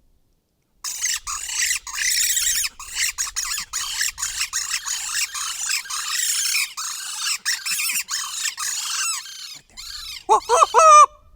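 A chorus of coyotes yipping and howling, many high wavering voices overlapping, starting abruptly about a second in. Near the end come louder, lower howling glides that rise and fall.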